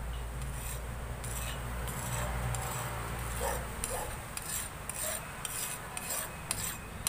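A whetstone rubbed back and forth along a long knife blade to sharpen it, a short rasping stroke about twice a second.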